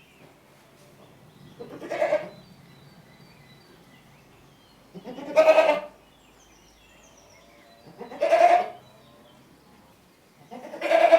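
Goat bleating: four loud, quavering bleats about three seconds apart, the last one cut off at the end.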